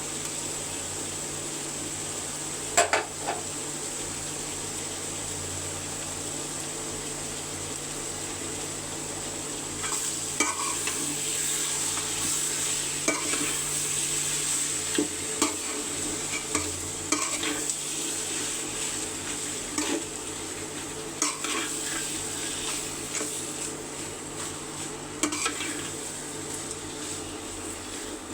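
Chicken and spices frying in oil in a cooking pot, with a steady sizzle. A spoon stirs the meat and knocks and scrapes against the pot every few seconds.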